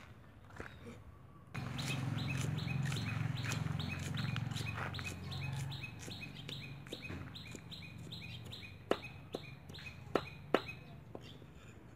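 Steel cleaver chopping green onions on a wooden chopping block: quick knocks about three to four a second, each with a short metallic ring, and a few harder chops near the end. A low hum sits underneath for the first half.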